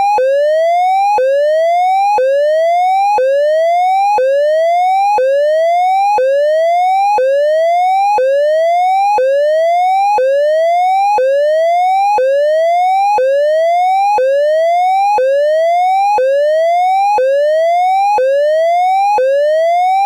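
Synthesized electronic siren hazard tone, a triangle-wave tone imitating an ASC digital siren controller. It sweeps up in pitch and snaps back down about once a second, repeating evenly.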